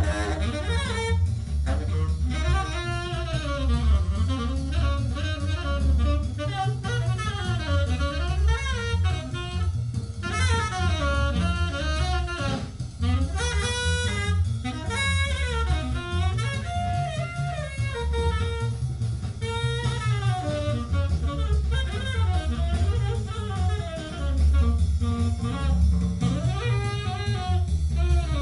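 Jazz with saxophone, double bass and drums, played back over Wolf von Langa Son loudspeakers and heard in the listening room.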